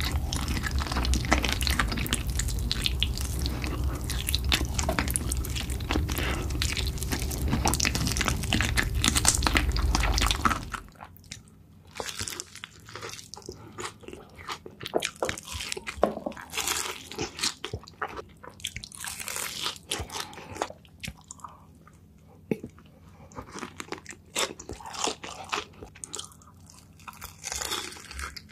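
Close-miked eating of sauce-coated fried chicken: loud, dense crunching and biting for about the first ten seconds, then after a sudden drop in level, quieter and sparser bites, crunches and chewing.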